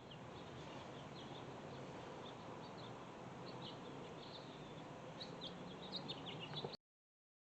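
Small birds chirping in short, repeated calls over a steady background hiss, the chirps coming thicker toward the end before the sound cuts off suddenly.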